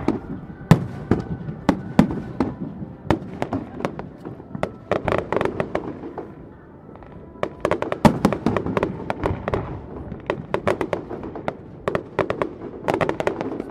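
Aerial fireworks display: a continuous string of sharp bangs, with dense bursts of crackling about five seconds in, from about eight to ten seconds, and again near the end.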